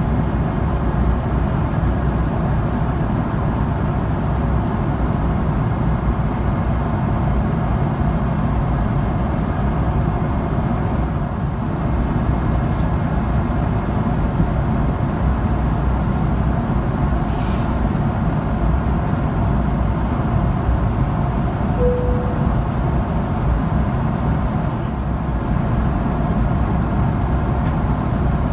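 Steady cabin noise of a Boeing 777-300ER in cruise: the even, low rush of airflow and its GE90-115B engines heard from inside the cabin. A short tone sounds once, about three quarters of the way through.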